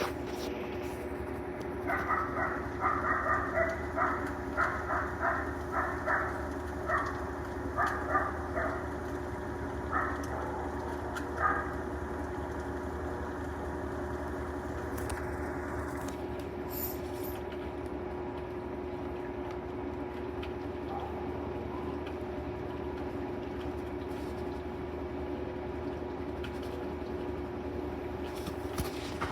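Whirlpool 22 kg washing machine in its spin cycle, a steady machine hum with a constant tone. From about two seconds in to around eleven seconds, a string of short, higher-pitched sounds comes in irregularly over the hum.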